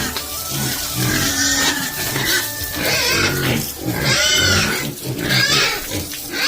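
Pigs squealing, a series of loud high squeals that follow one another about every second.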